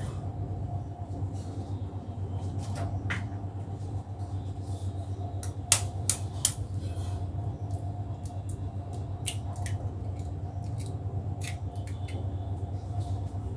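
Eggs being cracked with a spoon over a small steel bowl: scattered sharp taps and cracks of eggshell and spoon against steel, the two loudest about six seconds in. A steady low hum runs underneath.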